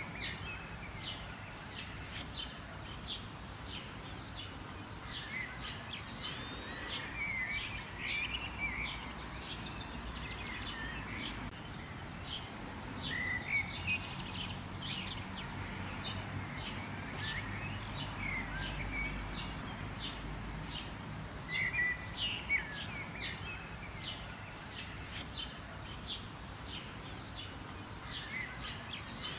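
Wild birds chirping and calling, a dense chorus of short, rapid chirps and trills from several birds, over a steady low background rumble.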